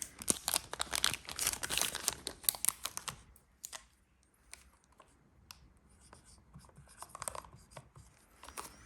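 Handling noise of a Zippo lighter case and insert: scratching, rustling and small clicks, busiest in the first three seconds, then sparser with a short flurry near the end.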